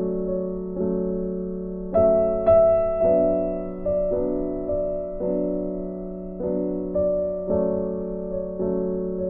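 Slow, gentle background piano music: notes and chords struck about once a second, each fading away before the next.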